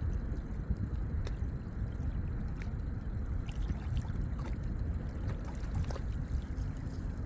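Lakeside ambience: water gurgling over a steady low rumble, with faint scattered ticks.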